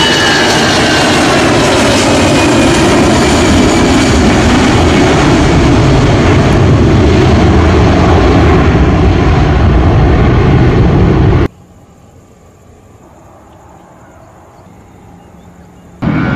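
Jet airliner's engines at takeoff thrust: a loud, steady rumbling jet noise as the plane accelerates and climbs away. About 11 seconds in it cuts off abruptly to a faint hiss, and the loud jet noise returns near the end.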